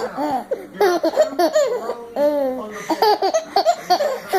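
Baby boy laughing in quick, high-pitched bursts of giggles, with a longer drawn-out laugh a little over two seconds in.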